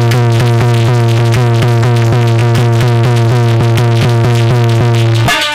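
Instrumental devotional accompaniment music: a steady low drone held under quick, evenly repeated melody notes from a keyboard-type instrument. The drone drops out briefly just before the end.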